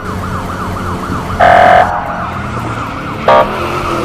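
Police car siren wailing in a fast up-and-down yelp, about four sweeps a second. Two loud horn blasts cut in: a longer one about a second and a half in and a short one near the end.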